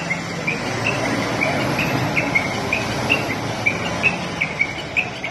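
A SANY reach stacker's diesel engine running with a steady low hum, under a rapid series of short high chirps, about two or three a second.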